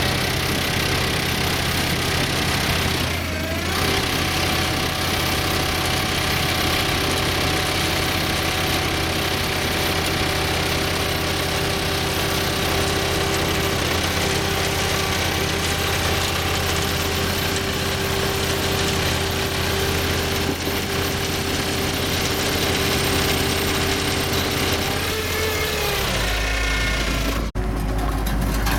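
Skid steer loader's engine running steadily while powering a bale slicer attachment that is shedding shredded bale material through its grate. Near the end the engine note drops to a lower pitch.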